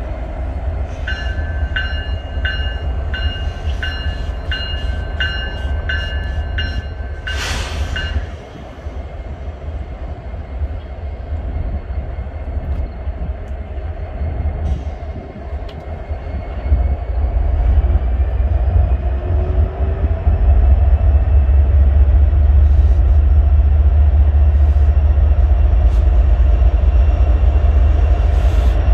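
Diesel-electric freight locomotives running as they approach slowly, a deep engine rumble that grows steadily louder from about halfway through. For the first eight seconds a bell rings at about one and a half strikes a second, and a short hiss ends it.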